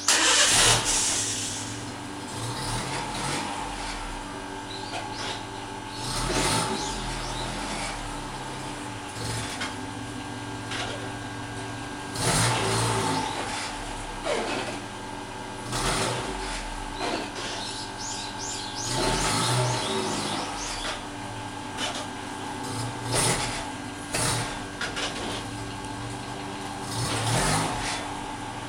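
Nissan Sunny van on the move, its engine pulling up and easing off several times, with an abnormal noise from the rear that comes on pulling away, braking and throttle on and off. Short sharp knocks recur through the run.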